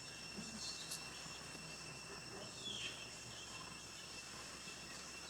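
Faint, steady high-pitched insect chorus of crickets or cicadas, holding several even tones, with one short falling chirp about halfway through.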